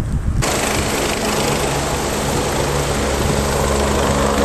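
Helicopter running at a heliport: a loud, steady rotor and turbine noise over a constant low hum, starting abruptly about half a second in.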